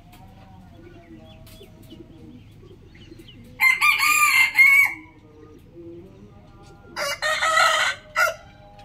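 Rooster crowing twice: a crow of about a second and a half starting about three and a half seconds in, and another, ending in a short extra note, near the end.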